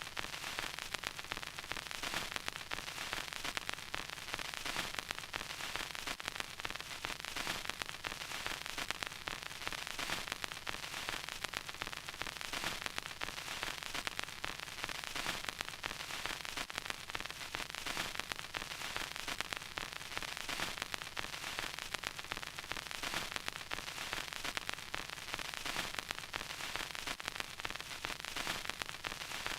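Vinyl record crackle: a steady bed of surface hiss with dense, irregular small pops and clicks.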